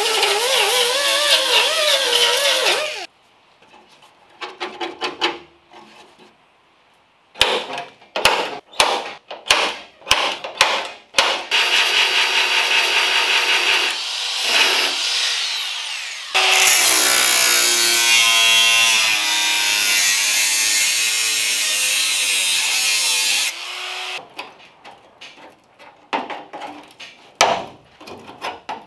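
Air-powered right-angle die grinder with a small sanding disc grinding welded steel, its whine wavering with the load, stopping about three seconds in. A run of sharp clicks follows, then long steady hissing from a handheld sandblaster gun blasting rust off the sill.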